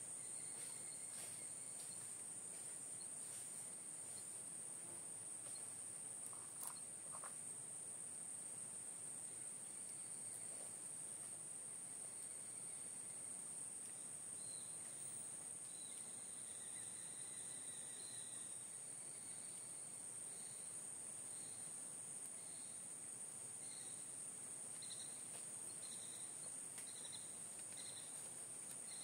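Steady high-pitched drone of insects in a forest. From about halfway through, a faint run of short, evenly spaced calls, about one a second, sounds over it.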